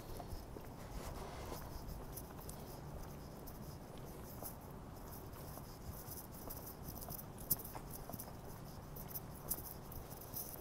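Quiet city street ambience: a low steady rumble with light, irregular ticks and clicks, and one sharper click about seven and a half seconds in.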